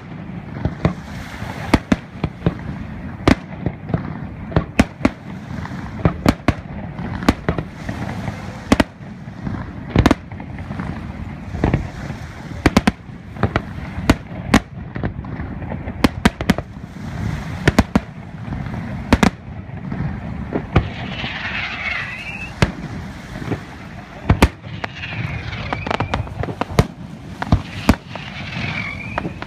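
Aerial firework shells bursting in quick, irregular succession, sharp bangs one or two a second over a steady low rumble. A few high gliding tones come in after about twenty seconds.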